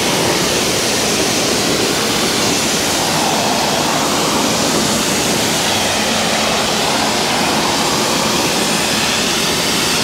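Electric pressure washer running with its water jet spraying, a steady loud hiss, as shampoo foam is rinsed off a car.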